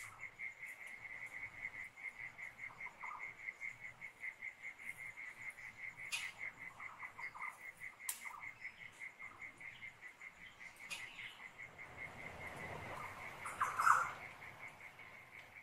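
Night-time bush ambience recorded while camping in Australia: an insect, likely a cricket, trills with a rapid, even pulse throughout, and other animal calls chirp now and then. A louder call stands out near the end.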